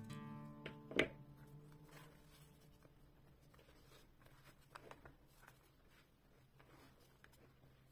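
Faint scratching and scraping of a spatula stirring flour in a glass mixing bowl, with a single sharp knock about a second in.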